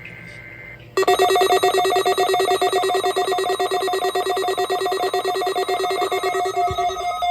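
NOAA weather radio receivers sounding their alert alarms, set off by the weekly test signal. A loud, rapidly pulsing electronic beep starts about a second in, after the end of a faint two-tone digital data burst. Near the end it gives way to a different beep that alternates between two pitches.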